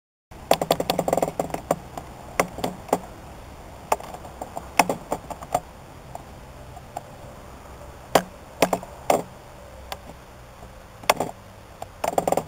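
Camera handling noise: irregular knocks and clicks close to the microphone, some in quick clusters, over a steady low background hiss.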